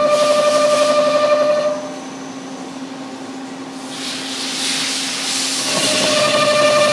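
CNC lathe machining a cast iron pipe fitting: a steady, slightly warbling high whine that stops about two seconds in, leaving a lower hum. A hiss swells over the next few seconds, and the whine comes back near the end.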